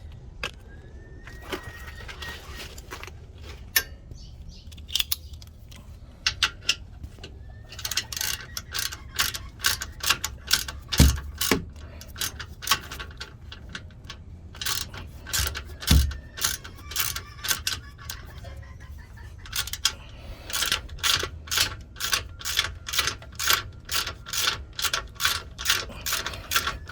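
Hand ratchet wrench clicking as it is worked in quick back-and-forth strokes on a suspension bolt, in two long runs at about three clicks a second. Two dull thumps come in the middle.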